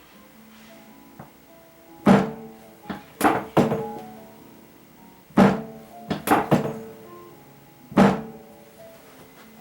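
About eight sharp thumps from a chiropractic adjustment, irregularly spaced and some in quick pairs, over soft background acoustic guitar music.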